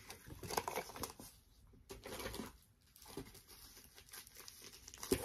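Clear plastic packaging bag crinkling and rustling in irregular bursts as it is handled.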